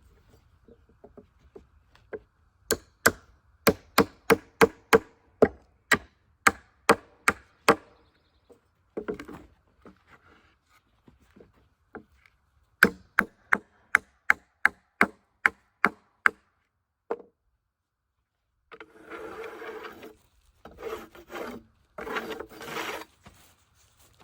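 Two quick runs of sharp knocks on wood, about two to three a second, followed near the end by wood scraping and sliding against wood in several drawn-out strokes.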